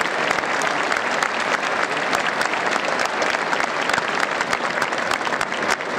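A large crowd applauding steadily: a dense, even clatter of many hands clapping.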